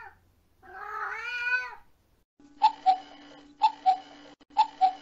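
A kitten meowing with one long, wavering cry. About halfway through, a music cue begins: a steady low drone with a pair of sharp falling notes about once a second, like a clock's tick-tock.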